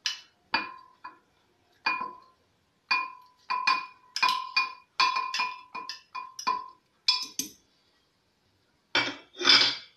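Frozen strawberries dropped one by one into a blender jar, each landing with a sharp clink that rings briefly, about eighteen clinks in irregular succession. Near the end there is a louder, longer scrape.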